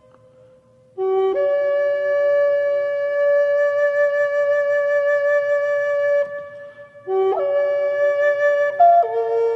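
Background music: a single wind instrument playing long held notes, coming in about a second in, pausing briefly, then starting a second phrase that steps down in pitch near the end.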